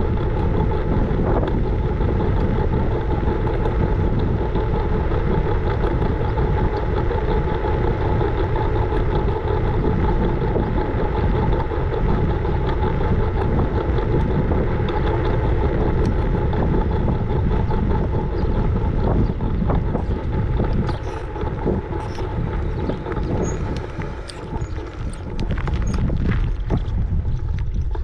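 Riding a scooter: continuous wheel and road rumble with wind on the microphone and a steady whine. It eases off for a few seconds about three-quarters of the way through, where a few clicks come in, then picks up again.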